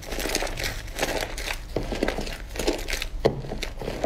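Thick slime squeezed and kneaded by hand, giving a close, irregular run of squelching crackles and small pops.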